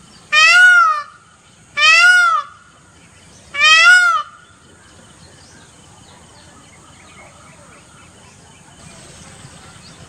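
Male Indian peafowl (peacock) calling: three loud calls about a second and a half apart, each under a second long and rising then falling in pitch, over roughly the first four seconds.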